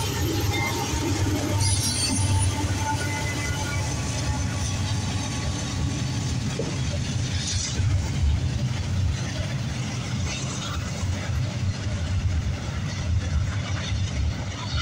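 A Norfolk Southern GE AC44C6M diesel locomotive passing close by in the first seconds, then a long intermodal train of double-stack well cars rolling past with a steady low rumble of wheels on the rails.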